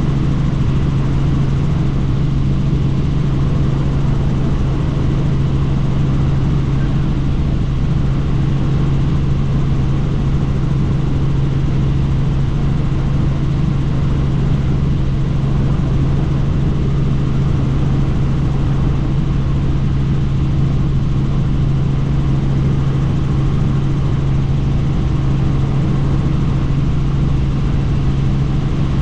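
Helicopter in cruise flight heard from inside the cabin with the doors off: a loud, unchanging drone of rotor and turbine with a strong low hum, mixed with rushing wind noise.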